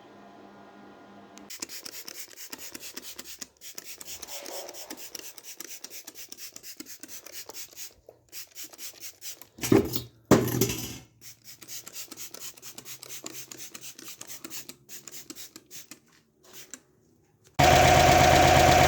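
Quick back-and-forth rasping strokes of hand filing or rubbing on the grille being made, about four or five a second, with two louder scrapes about halfway through. Near the end a loud, steady, pitched sound takes over.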